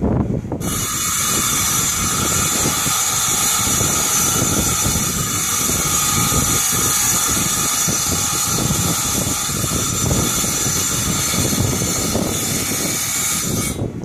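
Harbor Freight tile saw running with a steady high whine. It starts abruptly about half a second in and stops abruptly near the end.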